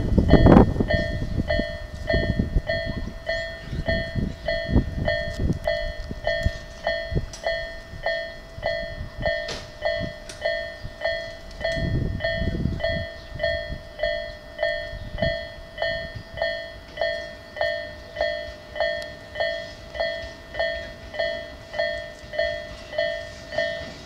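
Japanese railway level-crossing warning bell starting about a second in and ringing steadily, about three rings every two seconds, signalling that a train is approaching the crossing. Low rumbles come and go underneath, after a loud rumble at the very start.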